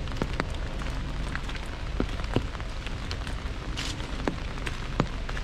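Rain drumming steadily on an umbrella, with a few louder single drops striking the canopy.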